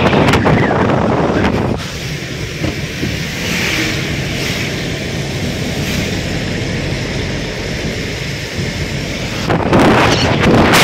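Wind rushing and buffeting the microphone, with tyre and road noise, from a car driving through heavy rain on a wet road. About two seconds in, the sound drops to a quieter, steady hiss of rain and tyres heard from inside the car. The loud wind rush comes back near the end.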